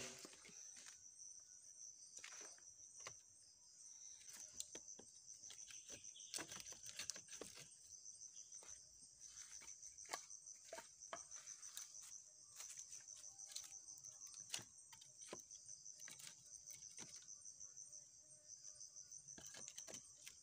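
Insects trilling steadily at a high pitch, with scattered light knocks and clatters of split firewood pieces being handled and packed into a sack.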